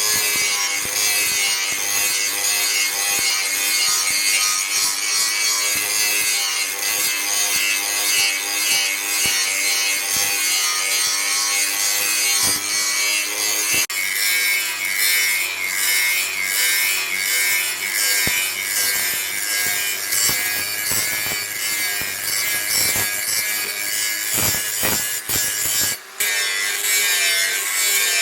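Continuous abrasive rasping of a tool cutting or grinding the workpiece, steady and loud, breaking off briefly about 14 and 26 seconds in.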